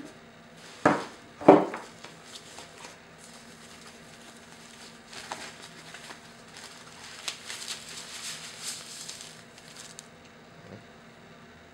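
Two sharp knocks about a second in, then a stretch of crinkly rustling as a thin foam sleeve is handled and a tablet slid out of it.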